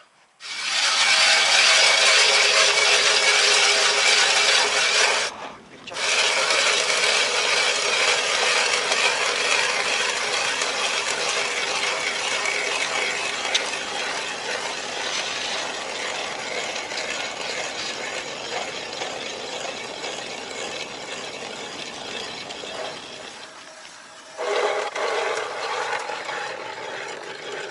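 Ice auger drilling into river ice, its blades scraping and grinding steadily. It stops briefly about five seconds in, fades slowly, then grows louder again near the end. The blades are dull and barely bite into the ice.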